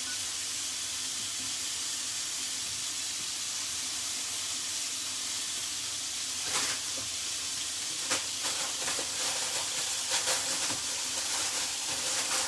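Chicken breast sizzling steadily in a hot frying pan. From about halfway through, a series of sharp clicks and knocks sound over the sizzle.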